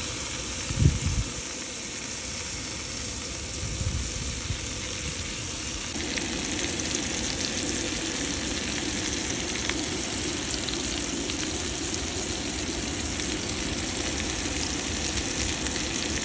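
Seafood frying in a pan with a steady sizzle, with a low bump about a second in.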